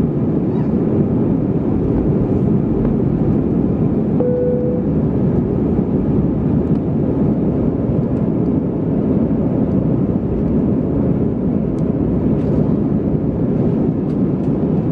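Airbus A320-232 cabin noise in the initial climb after takeoff: the steady rumble of its IAE V2500 engines and rushing air, heard from a window seat over the wing. A brief steady tone sounds for about half a second a little over four seconds in.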